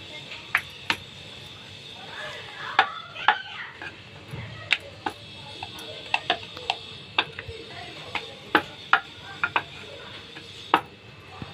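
Irregular light clicks and taps from hands working a ball of dough on a floured wooden rolling board, over a faint steady hum.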